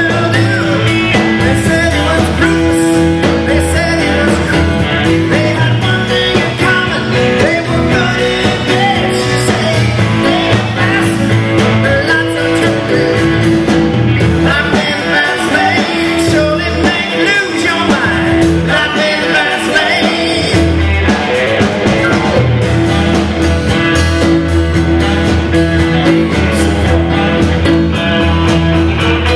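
Live rock band playing: a male lead singer over electric guitar, keyboard, bass and drums.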